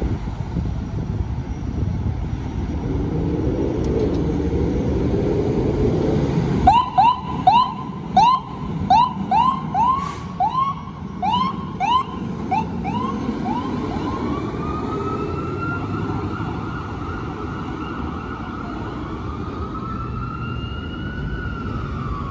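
Fire engine siren responding code 3. Engine and traffic rumble comes first. About seven seconds in, a fast yelp starts, short rising whoops about two a second. It then switches to a slow wail that rises and falls.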